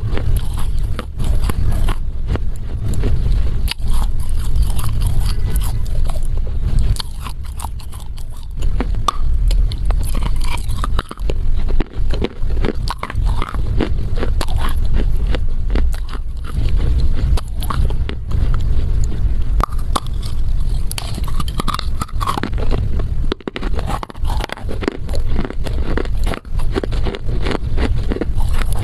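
Close-miked chewing and crunching of a chunk of Chinese loess clay: a dense run of small crisp crackles and crunches as the dry clay breaks up between the teeth, picked up by a lapel microphone held right at the mouth.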